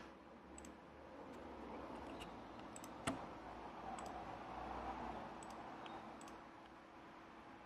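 Faint, scattered computer mouse clicks, about seven in all with one louder click about three seconds in, as lines are selected and corners rounded in CAD software. Faint steady room noise sits underneath.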